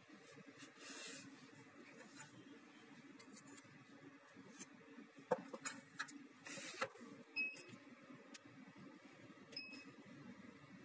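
A few faint clicks and taps, then two short, high electronic beeps about two seconds apart. The beeps come from a UV-VIS spectrophotometer's keypad as its keys are pressed.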